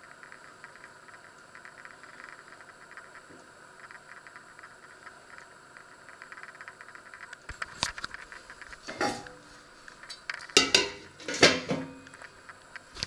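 Faint, steady crackling ticks, then from about halfway several loud metallic clanks and clinks, each ringing briefly, as a stainless steel pot and its lid are handled on an induction hob.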